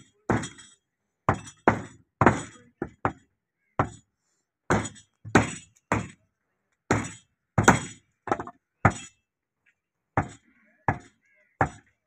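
Heavy meat cleaver chopping beef on a wooden stump chopping block: a string of sharp, uneven chops, one or two a second, with a short pause about nine seconds in.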